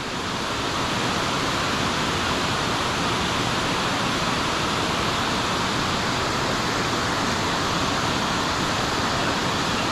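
Steady rush of fast-flowing stream water, an even hiss with no change in level.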